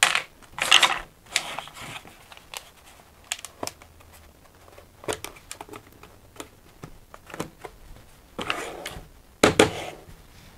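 Laser-cut plywood dice box with a living-hinge spine being closed: a clatter of dice and wood as the lid comes down, then a run of small wooden clicks and knocks as its latch is worked, with a louder cluster of knocks near the end.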